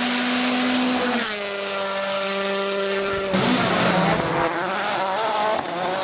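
Rally car engine running hard at high revs. About a second in the pitch steps down and holds steady, and from about three seconds the note turns uneven, the revs rising and falling as the car works through the stage. Near the end the sound cuts to another rally car.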